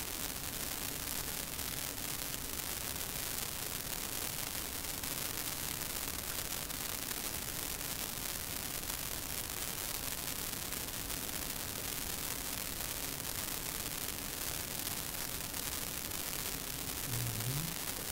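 Steady even hiss with a faint low hum underneath. About seventeen seconds in there is a brief low rising sound.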